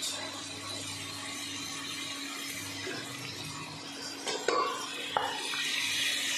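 Rice being stirred with metal tongs in an aluminium pressure cooker: scraping against the pot, with a few sharp clinks about four to five seconds in, over a steady hiss.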